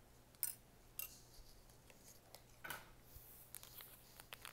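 Quiet handling of a plastic candy kit: a few light clicks and a brief scrape, then crinkling of a foil packet being handled and opened near the end.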